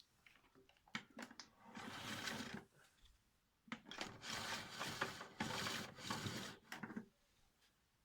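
Handling noise: a few clicks and two spells of scraping and rubbing, the second about three seconds long. No motor is running.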